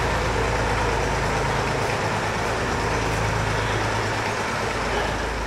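Small vintage tractor engine running steadily at low speed as it pulls a harrow over arena sand.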